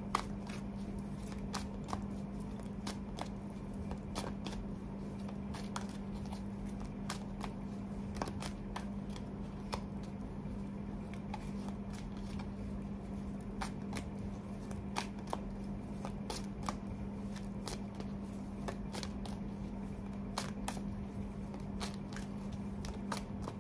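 A deck of tarot cards being shuffled by hand, with irregular soft clicks and slaps of the cards against each other. A steady low hum sounds underneath.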